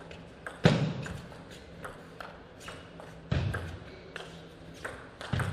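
Table tennis rally: the plastic ball clicking off the rubbers and the table in quick succession, with three louder, deeper thuds spaced through it.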